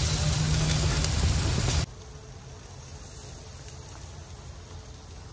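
Sauced chicken pieces sizzling on a gas grill: a steady, loud hiss with a low rumble that drops sharply about two seconds in and goes on much fainter.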